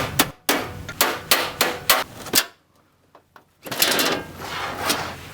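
Sharp metallic knocks and clanks while a rack server's steel case is worked open, in two runs broken by a short silence about halfway through.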